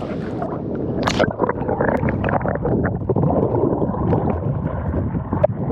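Seawater in a rock pool heard through a camera's microphone as it is dipped under the surface: a short splash about a second in, then muffled underwater gurgling and crackling with the high sounds cut off.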